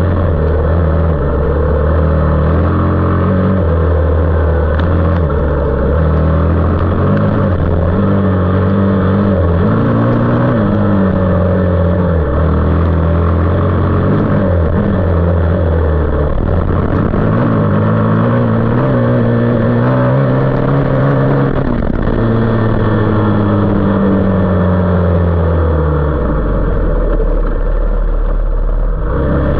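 A 450cc single-cylinder off-road engine ridden hard through the gears, its revs climbing and dropping with each shift. About two-thirds of the way in the revs wind down for several seconds, then pick up again just before the end.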